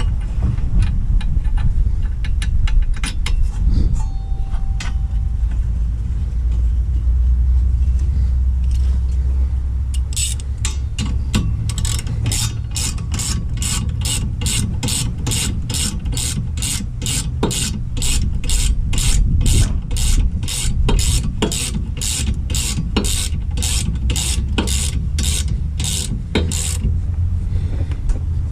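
Half-inch drive hand ratchet clicking as it runs in the bolts of a new rear wheel hub assembly, about two to three clicks a second for most of the second half, after scattered clinks of metal on metal. A steady low rumble lies underneath.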